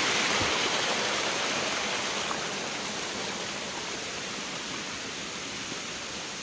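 Water rushing along an irrigation channel: a steady, even hiss of flowing water that grows gradually fainter.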